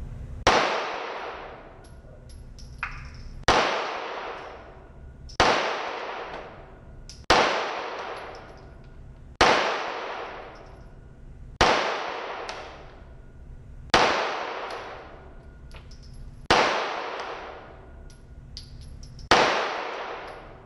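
Nine handgun shots fired slowly, one every two to two and a half seconds, each sharp crack trailing off in a long echo inside an indoor range, with one fainter shot about three seconds in.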